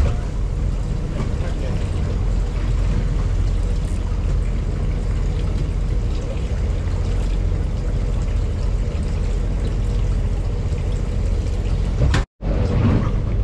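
Fishing boat's engine idling, a steady low rumble with faint voices over it; the sound cuts out for a moment near the end.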